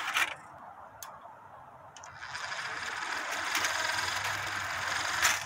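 Meccano gear train and spinning air-brake fan whirring and ticking as the funicular car runs down under its own weight, the fan governing its speed. Two sharp clicks in the quieter first two seconds, then the whirr builds, and a sharp metal click near the end.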